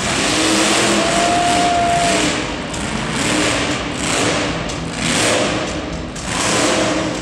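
California Kid monster truck's engine revving hard in repeated surges as the truck drives and turns on the dirt.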